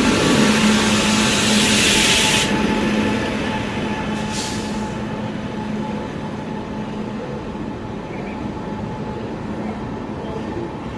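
Passenger train of LHB coaches running, with a loud hiss that cuts off suddenly about two and a half seconds in and a second, brief hiss a couple of seconds later. After that comes a steadier rumble with a faint steady hum.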